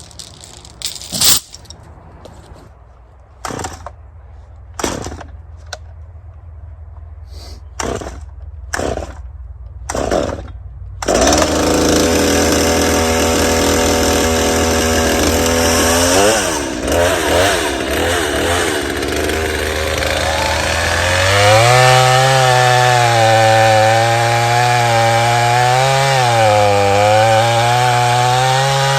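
Several short, separate knocks, then about eleven seconds in a two-stroke chainsaw starts and runs. Around twenty seconds in it is revved up and held at higher speed, its pitch wavering, as it is used for limbing a felled tree.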